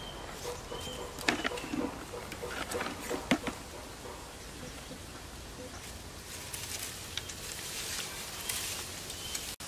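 Dry straw and brittle burnt grass rustling and crackling as they are handled, with a couple of sharp knocks from things set down on the hard ground early on and denser rustling from gathering an armful of straw near the end.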